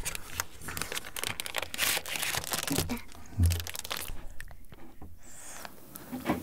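Plastic and card packaging of a chocolate bar crinkling and tearing as it is unwrapped, a dense irregular crackle that thins out after about three seconds. A brief low thump comes about three and a half seconds in.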